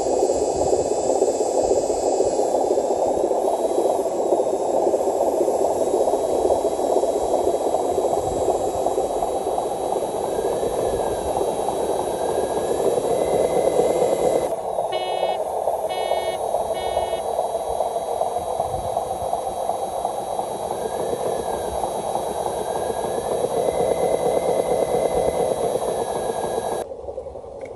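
Radio-controlled model dump truck's electric motor and gearbox running, a steady noisy drone with a faint whine that rises and falls as it drives. About halfway through come three short beeps.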